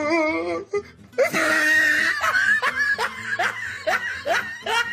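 A person laughing hard in a run of short repeated bursts, with music.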